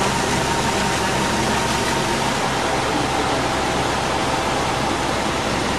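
Fountain water jets splashing into a pool, a steady rush of water.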